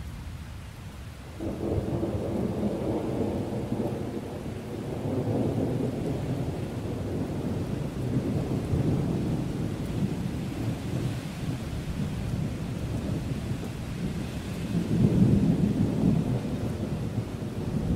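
Thunder rumbling over steady rain. The rumble comes in sharply about a second and a half in, rolls on, and swells again near the end.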